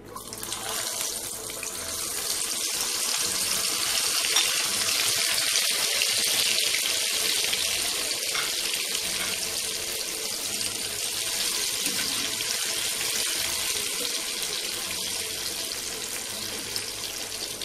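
Boiled jackfruit seeds deep-frying in hot oil in a small kadai: a steady sizzling hiss that starts as they drop in, swells over the first few seconds and eases slightly toward the end.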